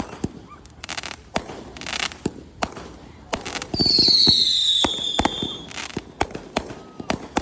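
Aerial fireworks going off: repeated sharp bangs with bursts of crackle. About four seconds in, a loud whistle lasting about a second falls slightly in pitch, typical of a whistling firework.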